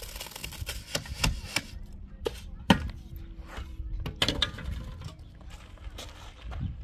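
A series of irregular knocks and taps, as of hand tools striking hard objects. The sharpest knock comes about two and a half seconds in.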